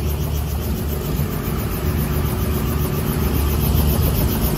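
An engine running steadily: a low drone with a fast, even pulsing.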